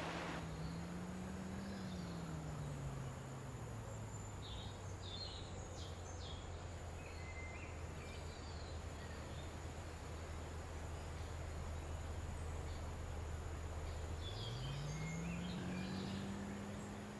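A steady low hum that slides up in pitch near the end, with scattered faint high chirps and a constant thin high whine.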